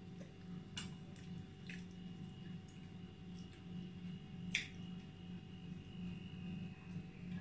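Eating sounds: chewing and fingers picking at a roast pig, with a few small clicks and one sharper clink about four and a half seconds in that rings on briefly, over a steady low hum.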